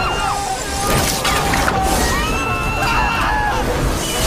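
Several people screaming in overlapping, rising and falling cries, over a film score and a low rumble.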